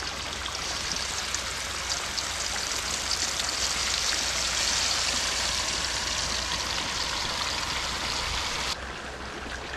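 Marinated chicken pieces deep-frying in hot oil in a wide metal kadai, a dense sizzling crackle that grows as more pieces are dropped in. Near the end the high hiss falls away sharply.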